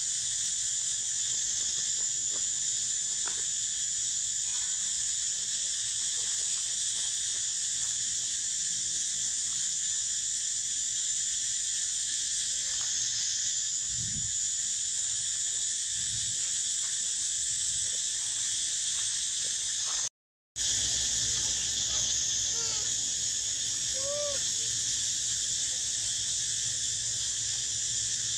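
Steady high-pitched drone of insects, unchanging throughout. The sound drops out for a moment about two-thirds through. After that, a few short, high animal squeaks come a second or two apart near the end.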